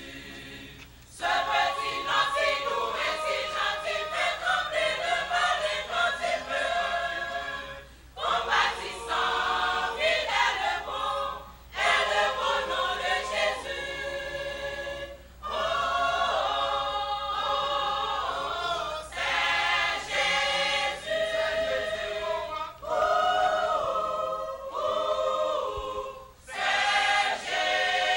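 Church choir singing a hymn in several voices, in phrases broken by brief pauses between lines.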